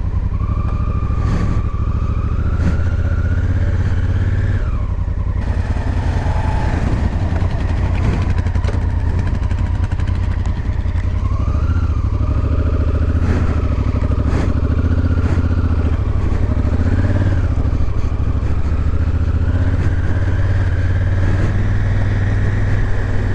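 Adventure motorcycle engine running while riding a gravel backroad, its pitch rising and falling with the throttle, with a few short knocks along the way.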